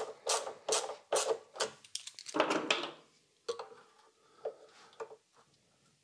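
Hand ratchet clicking as it tightens the nut that clamps a washing machine's heating element into the plastic tub. There are strokes about every half second for the first few seconds, then a few fainter clicks.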